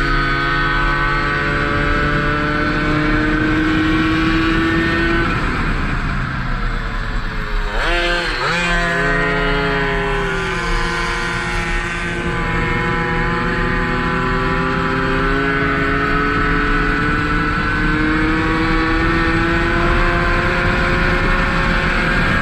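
Tomos racing moped's small two-stroke engine running hard at high revs over wind rush, its pitch climbing slowly as it accelerates. About eight seconds in the revs drop sharply and sweep back up through a corner, then climb steadily again as the bike speeds up down the straight.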